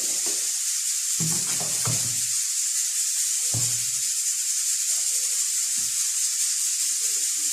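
A steady high hiss, with soft background music underneath.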